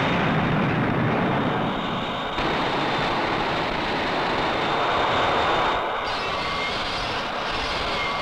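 Steady rushing jet-engine sound effect of an aircraft in flight. Its character changes abruptly about two and a half seconds in and again about six seconds in.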